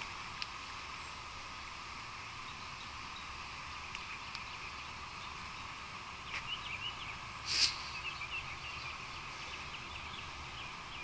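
Outdoor morning ambience: steady background hiss, with faint bird chirps and a short, sharp noisy burst a little past halfway.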